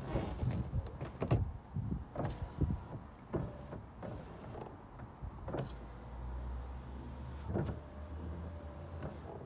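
Faint whirring of a small electric motor in a car door, as the electrics of a newly fitted wing mirror are tested. Scattered clicks and knocks run through it, and a low steady hum comes in about two-thirds of the way through.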